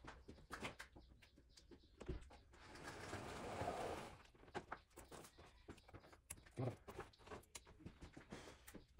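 Light knocks and clicks of hands and a metal profile template working wet plaster on a long moulding mould, with a stretch of scraping hiss about three seconds in.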